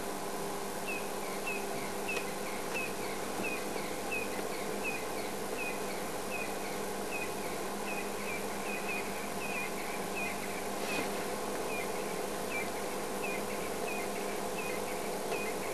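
Short high chirps repeating about twice a second, over a steady hum and hiss.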